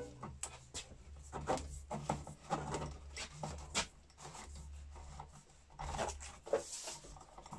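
Hands fitting a cut conduit whip into a watertight connector: irregular rubbing and scraping with small clicks and knocks, and a short scrape near the end, over a faint low hum.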